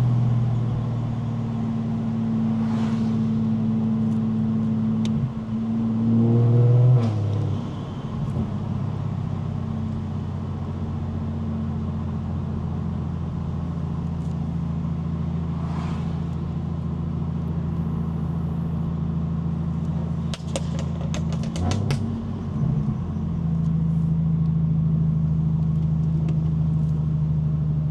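BMW 335is's single-turbo N54 inline-six running at low, steady revs, its note stepping down about seven seconds in. A short run of sharp clicks sounds about twenty seconds in.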